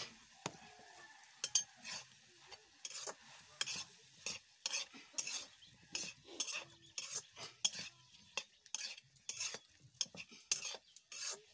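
A spatula scraping and stirring brinjal and potato curry in a metal pan, in irregular strokes about twice a second, with the food sizzling underneath.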